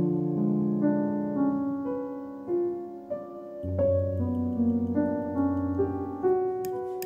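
Background piano music: a calm melody of held notes over a low accompaniment. A few light clicks come in near the end.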